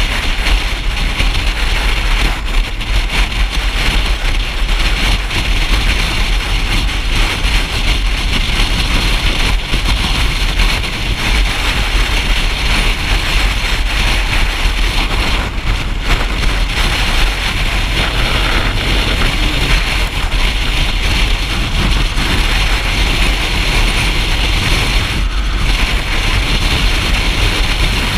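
Motorcycle on the move: a steady rush of wind on the microphone over the engine and road noise, with a deep rumble and hiss throughout.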